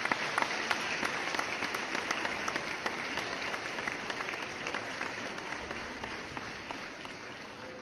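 Applause from many people clapping, starting suddenly and slowly fading out.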